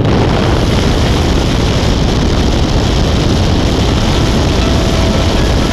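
Loud steady rush of wind and propeller-engine noise in the cabin of a small propeller plane in flight, with the jump door open.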